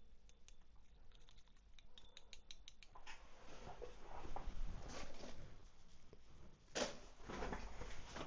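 Small workbench handling sounds while paint is mixed for the airbrush: light scattered clicks, then from about three seconds in irregular scraping and rustling, with a sharp knock near the end.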